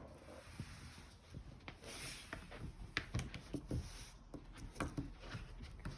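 Light, irregular clicks and taps of small plastic toy figures being handled and moved about on a surface.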